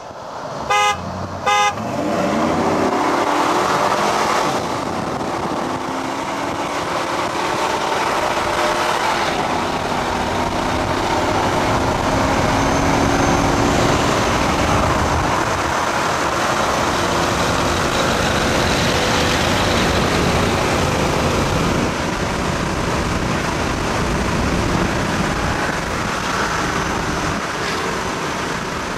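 Three quick car-horn toots about a second in, then engines accelerating hard at full throttle from a roll. The pitch climbs and falls back at each gear change, heard from a moving vehicle with road and wind noise.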